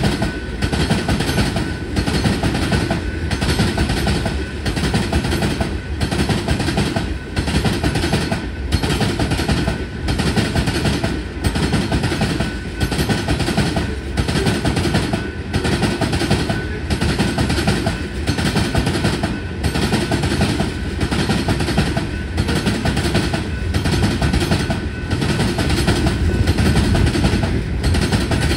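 Loaded rock hopper cars of a freight train rolling by: a continuous loud rumble of steel wheels on the rails, with a regular beat about every second and a half as each car goes past.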